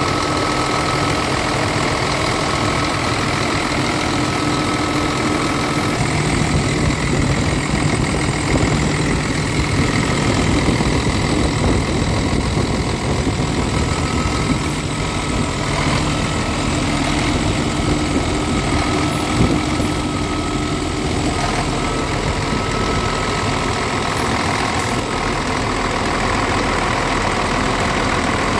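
Scania R tractor unit's inline-six diesel engine idling steadily, heard close up in the open engine bay.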